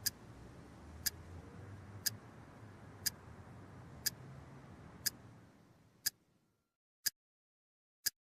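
Clock ticking, one sharp tick a second, over a faint low hum that fades out about six seconds in, leaving the ticks alone in silence.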